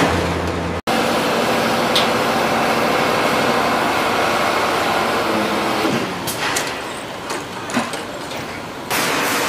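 Heavy scrap-yard machinery running with a steady, loud rumble and hiss. There is a brief dropout under a second in. About six seconds in it drops lower and a few sharp metallic clanks come through, and it swells back up near the end.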